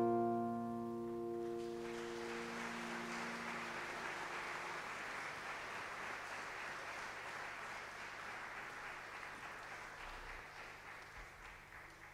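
The band's final chord, acoustic guitar among it, rings out and fades over the first few seconds. Then the audience applauds, the clapping slowly dying down.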